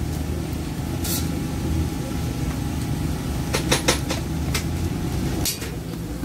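Busy street-market ambience: a steady low rumble with a few sharp clicks and clatters, several in quick succession about three and a half seconds in.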